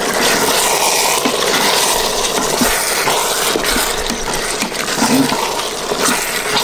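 Spoon stirring veal, mushrooms and herbs in a hot pressure-cooker pot: a steady sizzle with small scraping clicks of the spoon against the pot.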